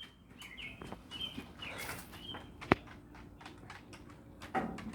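Small birds chirping several times in short calls, with a single sharp click about two and a half seconds in.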